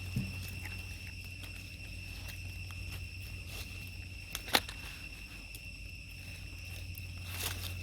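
Outdoor ambience with a steady high-pitched insect drone, scattered light clicks and rustles, and one sharp snap about four and a half seconds in.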